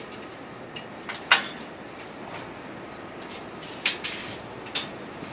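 Metal clanks and knocks from the steel frame of an NP120R paddy reaper being handled and fitted: one sharp clank about a second in, then two lighter ones near the end, over steady background noise.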